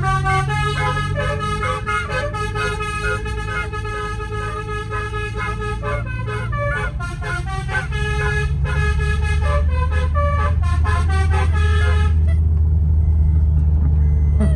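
Telolet basuri musical horn playing a quick tune of stepped notes for about twelve seconds, then cutting off. Under it a vehicle's low steady running hum grows louder toward the end.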